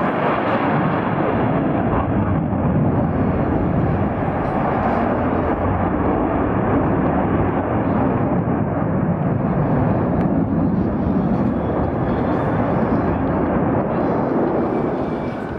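Jet noise from a Swedish Air Force JAS 39 Gripen fighter flying a display pass, a loud, steady rush that begins to fade near the end.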